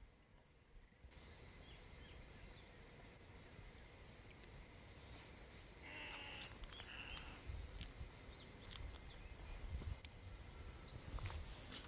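Insects trilling outdoors: one steady, high-pitched drone that starts abruptly about a second in and holds without a break, faint against a low background rumble.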